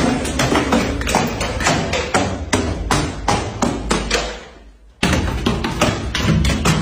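Glass bottles being smashed and crushed: a rapid run of hard knocks and crunches, about three or four a second. The knocks fade out about four seconds in and start again abruptly a second later.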